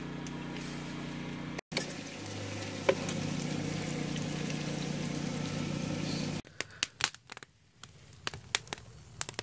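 Smelt sizzling in hot oil in a frying pan, a steady hiss. About six seconds in it gives way to a wood campfire crackling, with scattered sharp pops.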